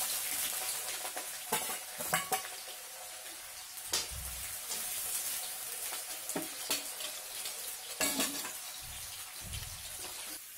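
Sliced onions sizzling in hot mustard oil in a steel kadai. The sizzle is strongest just after they go in and eases off, with a few light knocks against the pan.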